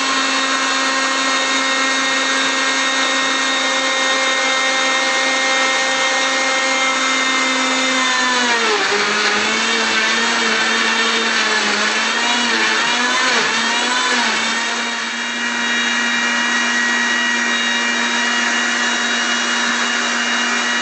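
Countertop jug blender motor running steadily, blending chopped carrot, apple and beetroot into juice. About eight seconds in, its pitch drops and wavers for several seconds, then settles again.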